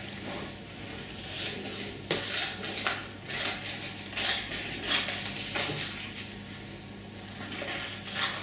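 Scissors snipping through a sheet of printer paper in short, irregular cuts, with paper rustling between them.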